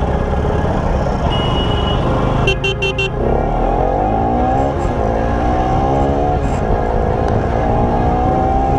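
Bajaj Pulsar NS200 single-cylinder engine through an aftermarket exhaust, accelerating with its pitch rising again and again. A horn beeps several short times about two and a half seconds in.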